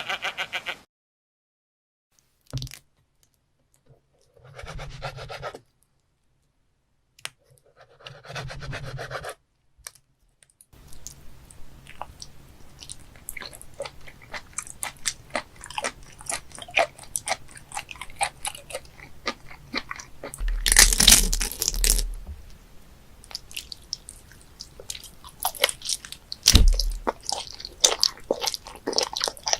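Close-up chewing and biting of raw live octopus: a dense run of small wet clicks and crunches, swelling louder twice in the second half. A few separate short sounds come before the chewing starts.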